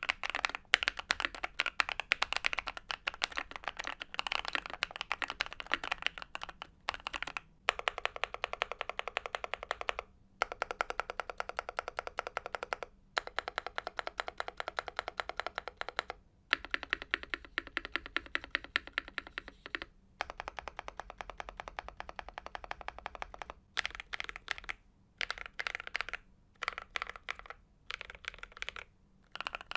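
Typing on a Monsgeek M3 aluminium TKL mechanical keyboard with lubed Akko CS Piano switches and PBT keycaps: fast runs of keystrokes broken by short pauses. From about three quarters of the way in, the keystrokes come slower and more spaced out.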